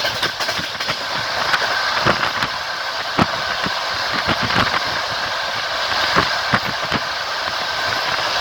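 Passenger train running, heard from a carriage window: a steady rolling rush of wheels on rail, broken by frequent irregular clicks and knocks from the wheels and track.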